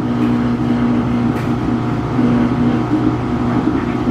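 Samsung washing machine's drain pump running with a steady hum, pumping water out before the spin cycle; the drum is not yet spinning.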